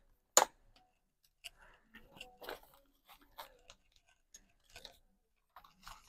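Bike packaging being handled during an unboxing: scattered short crinkles and rustles, with one sharp click about half a second in.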